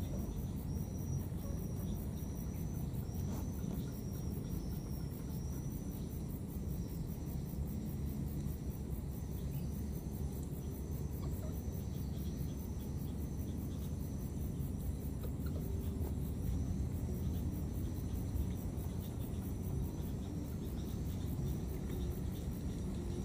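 Insects chirping steadily in wetland vegetation: a short high chirp repeating about every half second over a fainter, faster high pulsing, above a steady low rumble.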